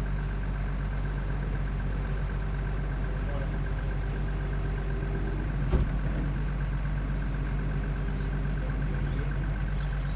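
A truck engine idling steadily, with a fainter whine that comes and goes over it and a single knock about six seconds in.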